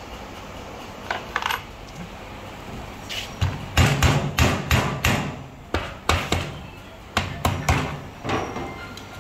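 A hand tool knocking repeatedly on the metal of a Hinota CG435 brush cutter engine during disassembly: a few light clicks, then from about three seconds in a dozen or so sharp knocks in loose groups, about three a second, over a low steady hum.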